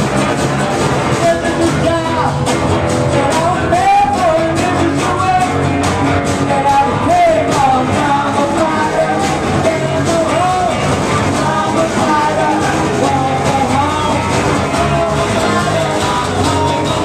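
Live rock and roll band: a man singing into a microphone over a strummed acoustic guitar and an electric guitar, with a steady beat.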